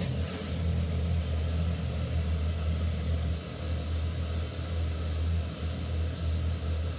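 Electric air blower keeping an inflatable bouncy castle inflated, running with a steady low hum.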